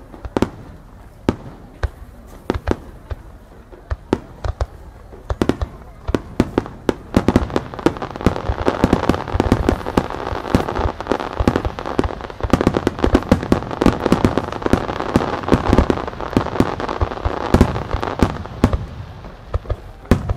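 Aerial firework shells bursting in a rapid, irregular series of sharp booms. From about seven seconds in, a denser crackle builds between the reports.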